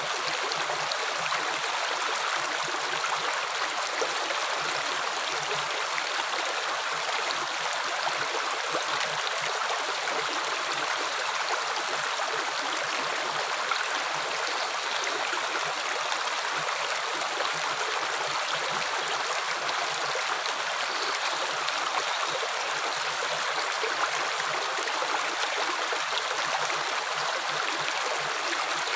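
Running water flowing steadily like a stream: an even, unbroken rush with fine trickling and no splashes or pauses.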